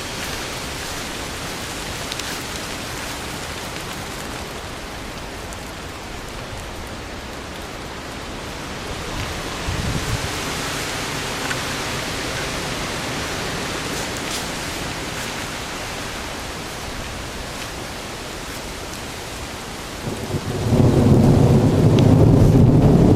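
Steady heavy rain in a thunderstorm, with a brief low swell about ten seconds in. About twenty seconds in, a much louder, deep rumble sets in and keeps going.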